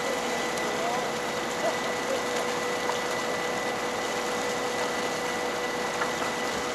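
Fishing boat's engine running steadily, with a constant whine over an even mechanical hiss.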